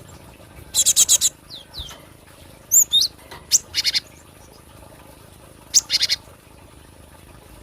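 Cinereous tit (gelatik batu) calling in short bursts of quick, sharp, high chirps, four or five notes to a burst, with a few single sliding notes between the bursts.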